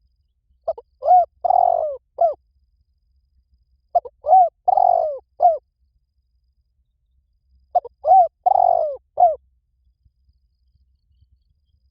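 Spotted dove cooing: three phrases about three and a half seconds apart. Each is a short run of low, arched coos with a longer, rougher note in the middle.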